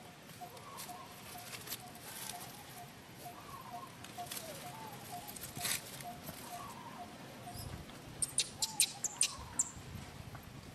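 Dry leaf litter crackling under moving macaques, with a quick run of about seven sharp crackles about eight seconds in. Faint short chirps repeat throughout.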